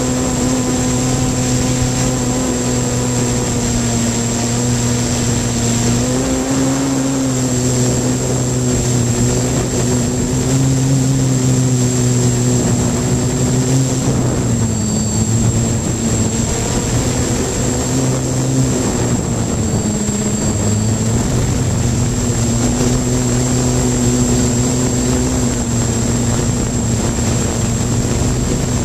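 3DR hexacopter's electric motors and propellers buzzing up close in hover and slow flight, the pitch wavering up and down as the motor speeds are constantly adjusted. A thin, steady high whine runs underneath.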